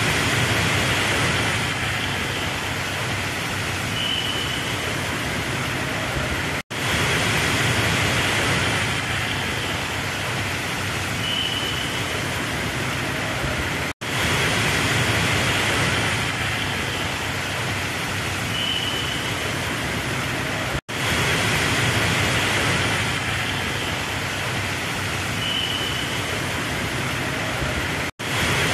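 Steady rushing hiss of heavy rain and rainwater pouring off the edge of a road flyover, mixed with road traffic on the wet road beneath. A short high beep comes once in each stretch of about seven seconds, and the sound cuts out for an instant between the repeating stretches.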